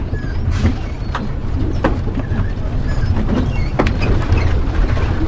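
Motorhome driving on a wet road, heard from inside the cab: a steady low engine and road rumble, with a few sharp knocks and rattles from the cab.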